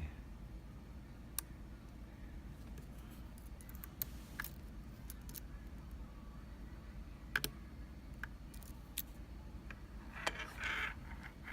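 Sparse small metallic clicks of a lock pick working the pin stack of a pin-tumbler challenge lock that is held in a deep false set, over a faint low hum, with a brief rustle near the end.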